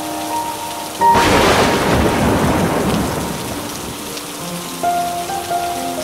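A thunderclap about a second in: a sudden crack that rumbles away over the next two to three seconds, over steady heavy rain. Soft background music with held notes runs underneath.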